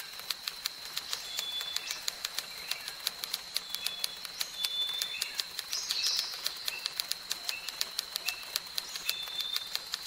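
Typewriter-style key clicks, rapid and evenly spaced at about five a second, as on-screen text types out. Behind them, a jungle ambience of short bird chirps and whistles and a steady high tone.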